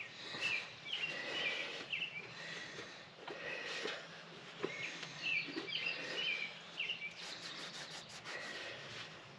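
Birds chirping repeatedly in short calls, with a few light clicks of handling noise and a faint steady hum underneath.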